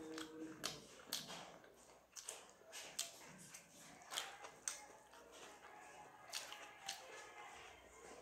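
Eating by hand: sharp, irregular smacks and clicks of chewing, together with fingers working rice on a plate, about one click a second.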